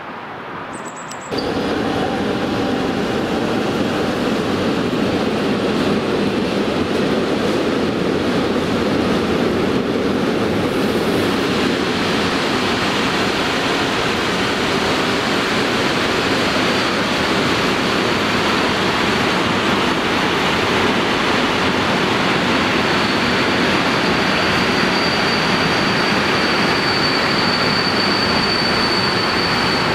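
Freight train of tank wagons passing close by, a steady dense rumble of wheels on rail that starts abruptly about a second in. A high steady wheel squeal grows louder in the second half.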